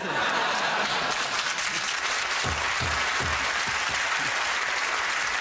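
Studio audience applauding steadily, breaking out suddenly and holding at an even level.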